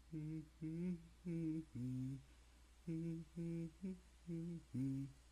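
A person humming a short tune: about ten brief held notes in two phrases, with a short pause between them.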